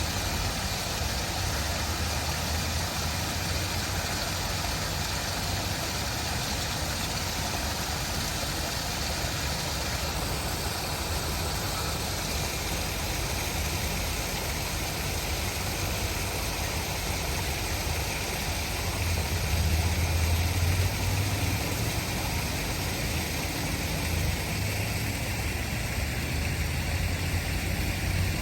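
Running water rushing steadily, with a deep rumble underneath that swells for a couple of seconds about two-thirds of the way through.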